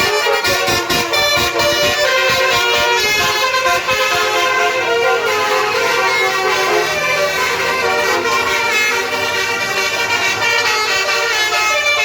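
A bus's 'basuri' telolet air horns, a bank of roof-mounted trumpets, playing a melody. Several horn notes sound together and step from pitch to pitch, with a quick run of clicks in the first couple of seconds.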